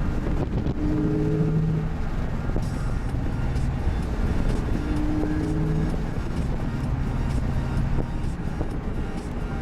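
2005 Pontiac GTO's LS2 V8 through a Spintech cat-back exhaust and Kooks headers, heard from inside the cabin while driving: a steady low rumble, with a brief droning tone twice, about a second in and again about five seconds in.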